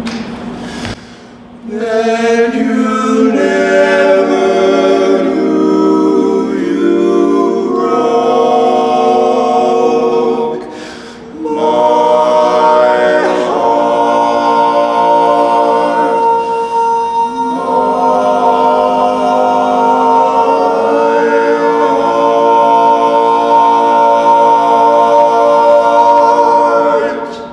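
Four men singing a barbershop tag a cappella in close harmony, starting about a second and a half in. There is a short break about eleven seconds in, and it ends on a long held chord with a high top note sustained over it.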